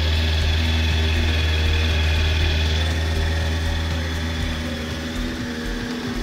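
Yamaha FZS1000 Fazer's inline-four engine idling steadily through its stock exhaust silencer, growing a little quieter over the last few seconds.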